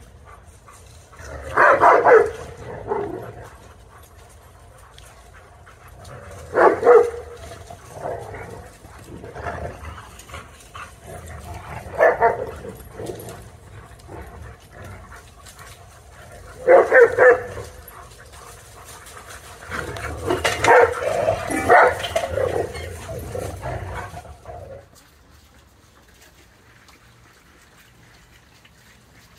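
Dogs barking while playing in a group: short loud bouts of barking about every five seconds, then a longer run of barking before it dies down near the end.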